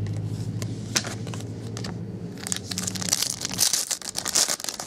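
Foil trading-card pack wrappers crinkling and tearing as they are handled and opened, densest in the second half. A steady low hum runs underneath and stops a little past halfway.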